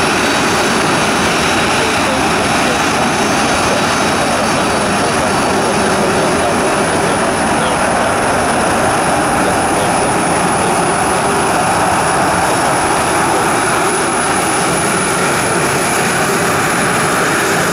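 Boeing 737 jet engines running steadily as the airliner taxis past: a loud, even rush of engine noise with a thin high-pitched whine over it.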